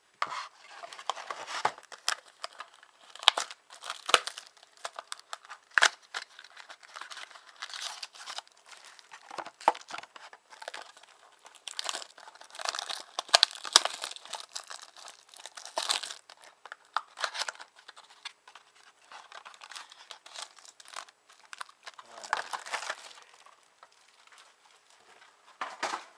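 Plastic wrapping on a trading-card box being torn open and crinkled: irregular crackling with many sharp snaps, quieter for a few seconds near the end.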